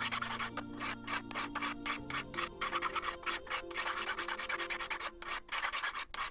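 Hand file rasping across a silver vesta case in quick, rhythmic strokes, filing away excess solder from a repaired seam. Faint background music with held notes plays underneath.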